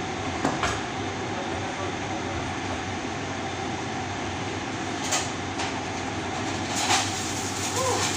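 Steady whirring machine noise with a low mains hum, broken by a few sharp knocks as a metal workpiece is handled on the workbench; an arc-welding electrode strikes up right at the end.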